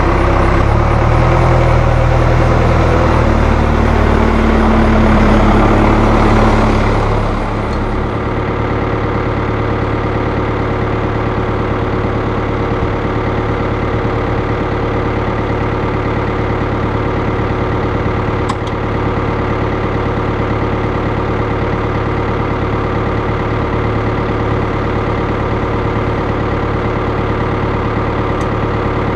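A New Holland TL100 tractor's Iveco 3.9-litre four-cylinder diesel engine running. It is louder with a shifting note for about the first seven seconds, then drops to a steady idle.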